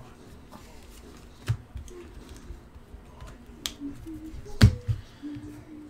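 Trading cards and foil card packs handled on a table: a few sharp clicks and taps over quiet handling, the loudest just under five seconds in.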